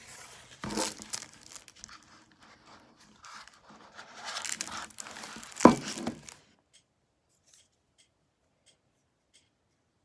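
Packaging being opened by hand: crinkling and tearing in bursts, with one sharp, loud snap a little past halfway, then only a few faint ticks.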